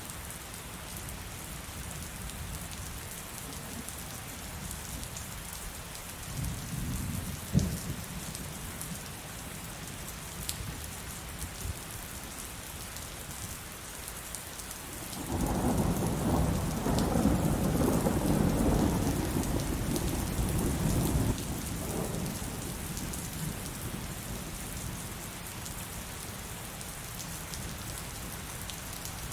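Steady heavy rain throughout, with a short rumble and sharp crack of thunder about seven seconds in, then a loud, long rolling thunderclap from about fifteen seconds in lasting some six seconds before dying away.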